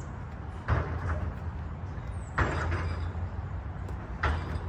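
Wind buffeting the microphone, a steady low rumble, with a short hissy burst about every two seconds.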